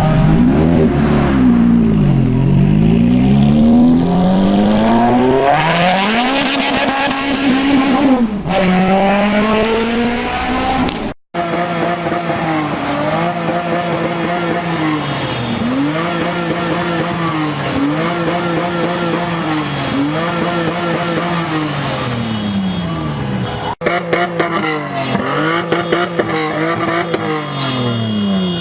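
Performance car engines revving hard, the engine note climbing and dropping again and again as the cars accelerate and shift. Three separate clips follow one another with abrupt cuts. In the middle one the pitch rises and falls about every two seconds.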